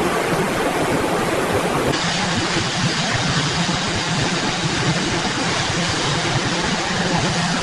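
Steady, loud rushing noise with a faint low hum under it, changing in character about two seconds in.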